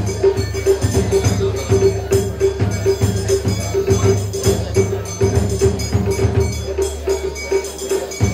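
Japanese festival music: rhythmic metallic jingling and wooden clacks over a ringing tone that pulses several times a second.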